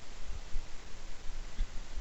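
Steady background hiss with irregular low rumbling and thumps, with no distinct sound event.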